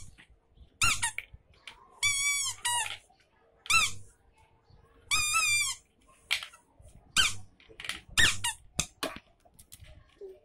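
Rubber squeeze toy squeaking in a series of about ten irregular high squeaks, two of them longer with a wavering pitch.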